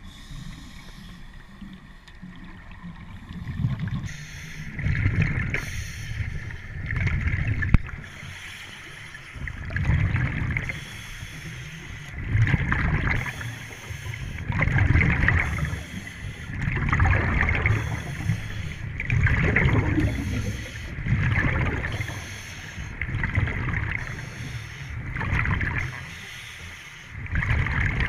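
Scuba diver breathing through a regulator underwater: a rumble of exhaled bubbles alternating with breath hiss, in swells about every two seconds.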